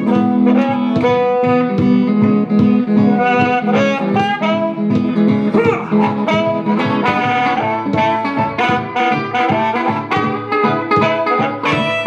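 Live blues instrumental: electric or acoustic guitar picking quick runs of notes with a harmonica playing along, no vocals.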